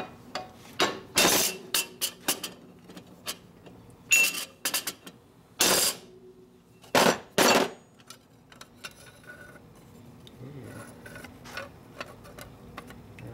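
Hammer striking a drift against a motorcycle clutch basket: about half a dozen sharp metallic blows with a short ring, spread over the first eight seconds. After that come lighter clinks of the clutch plates being handled.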